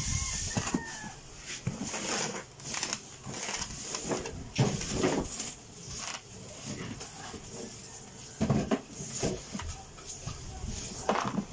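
Cardboard box flaps and a styrofoam shell rubbing, scraping and knocking as an egg incubator is slid out of its packaging, in irregular handling noises. A chicken calls in the background.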